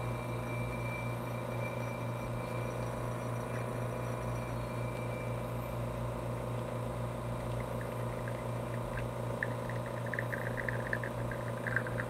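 Espresso machine pump humming steadily during a shot, with faint light ticking over the last few seconds as espresso begins dripping into the cup.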